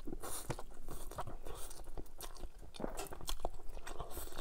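Close-miked eating sounds: a man slurping in and chewing soft stir-fried chow mein noodles, with many irregular wet smacks and clicks of the mouth.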